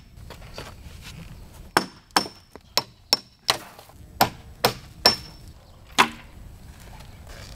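Hammer driving a steel chisel to chip exterior render (plaster) off a masonry wall: about ten sharp blows at roughly two a second, some with a short metallic ring. The blows start about two seconds in and stop about six seconds in.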